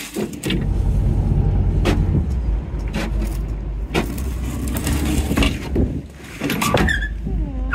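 Small passenger ferry's engine running with a steady low rumble as the boat comes in to land, with several knocks and clunks.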